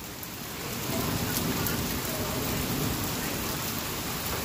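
Heavy rain falling in a thunderstorm, a steady hiss, with a low rumble swelling in about a second in.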